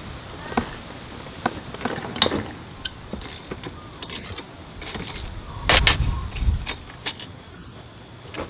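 Metal hand tools and parts clinking and knocking in irregular, scattered clicks, with a louder cluster of knocks and dull thuds about six seconds in.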